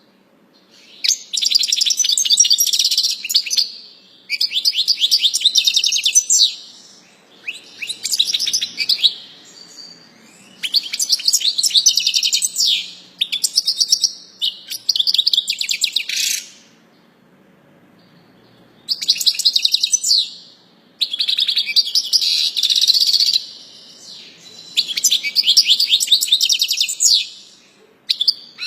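A songbird singing loudly and close up in phrases of rapid, high trills and chirps, each phrase lasting two to three seconds with short pauses between, about eight phrases in all.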